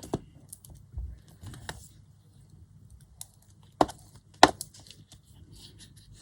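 Paper and craft materials being handled on a tabletop: faint rustling and small ticks, with two sharp taps a little over half a second apart about four seconds in.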